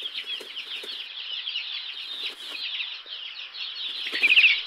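Small birds twittering: a dense stream of quick, high chirps overlapping one another, with a louder flurry near the end.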